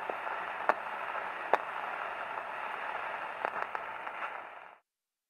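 Surface noise of an old record under a stylus: a steady, muffled hiss with scattered clicks and pops, two of them loud, that cuts off suddenly near the end.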